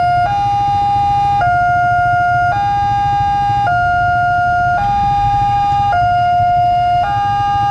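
Railway level-crossing warning alarm sounding a two-tone electronic hi-lo warning, the two pitches alternating evenly with each held about a second. A low steady rumble of waiting motorcycle engines lies underneath.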